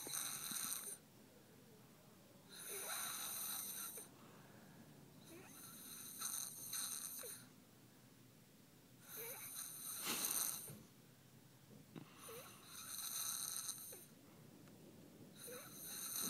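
Steady snoring, one long snore about every three seconds.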